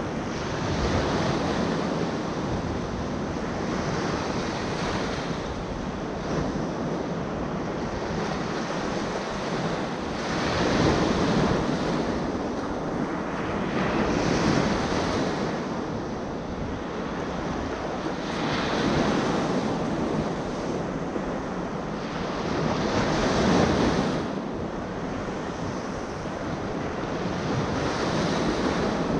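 Small ocean waves breaking close by and washing up onto the sand, the surf rising and falling every four to five seconds.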